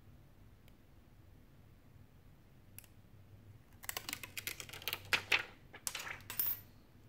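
A quick, irregular run of sharp crackling clicks for about three seconds, starting about four seconds in, from a smartphone replacement display being worked at its edge with a thin metal pry tool and handled.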